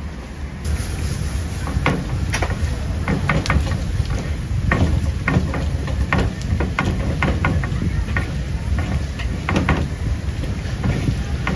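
Kitchen clatter from dumpling making: irregular sharp clacks and knocks, at times several a second, over a steady low hum.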